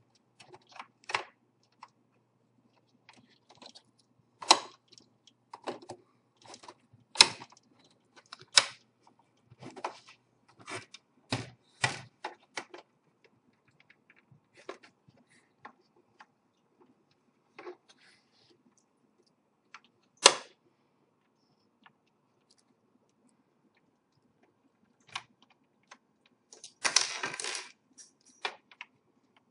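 Sharp plastic clicks and clacks of a screwdriver prying at the snap clips of an Xbox 360 Slim's plastic back casing, irregular and sparse, with one loud clack about two-thirds through and a short flurry of clicking near the end.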